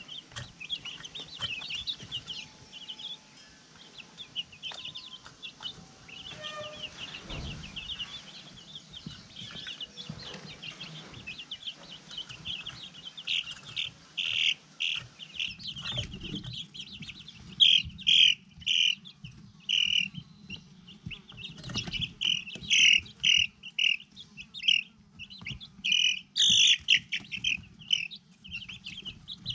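Young chicks, about three weeks old, peeping in short high chirps. The peeps are sparse at first and grow busier and louder about halfway through.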